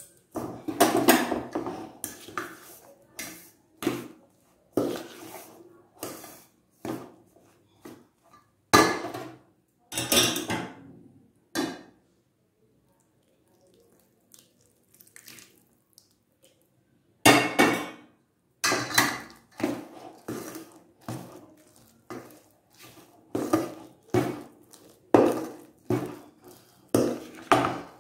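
Steel spoon scraping and knocking against a stainless steel bowl in irregular strokes while mixing flour into jaggery syrup to make dough. There is a quiet stretch of several seconds about halfway through.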